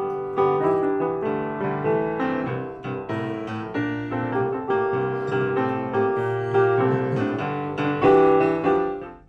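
Piano music: notes and chords struck in a steady run, each ringing and dying away, fading out at the very end.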